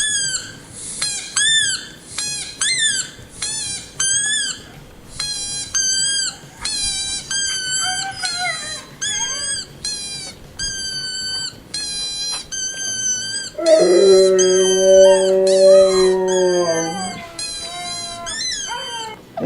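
Husky howling played back from a video: a quick string of short, high, arching howls about twice a second. About two-thirds of the way through, a dog answers with one long, deeper howl, the loudest sound here, lasting about three seconds, before the high calls return faintly.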